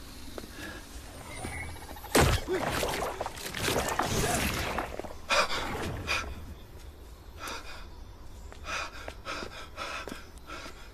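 A man gasping and panting in fright, with a sudden loud crash about two seconds in followed by a few seconds of noisy rumbling and a second burst soon after.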